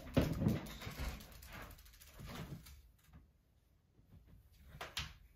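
Small plastic bearing balls spilled on a desk, clicking and rattling as they scatter and are handled, with a louder low knock about a quarter second in and another sharp click near the end.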